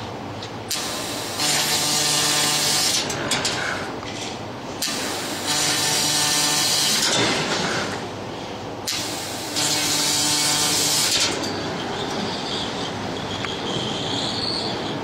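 YAG laser cutting machine cutting steel sheet: three loud hissing bursts of about two seconds each, with quieter gaps between them and a steady machine hum underneath.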